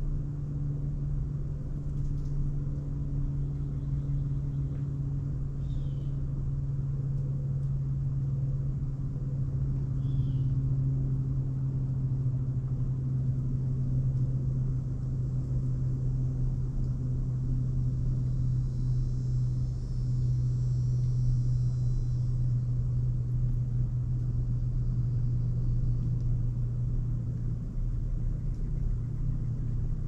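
An engine running at a steady speed: a low, even hum that holds its pitch throughout. Two faint, short, high chirps come about six and ten seconds in.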